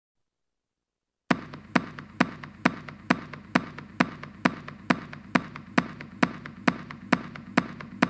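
Silence, then a little over a second in an electronic dance music (techno) track starts: a sharp percussive beat repeating evenly a little over twice a second over a steady low bass layer.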